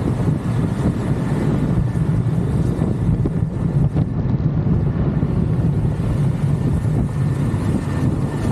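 Wind rushing over the microphone, mixed with a motorcycle's engine and road noise, while riding at highway speed of about 50 to 60 mph. The sound is a steady, heavy low rumble with no breaks.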